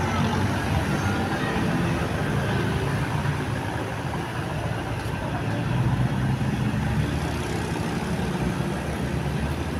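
Bus engine running steadily amid road traffic noise.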